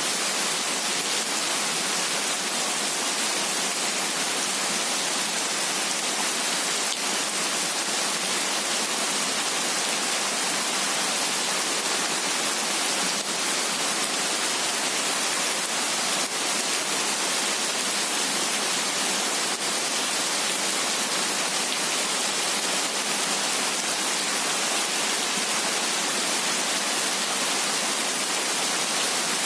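Heavy rain falling steadily: an even, hissing wash of drops with no thunder.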